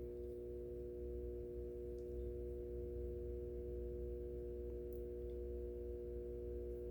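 Faint, steady hum made of several unchanging pitched tones over a deeper low drone, with a couple of faint ticks.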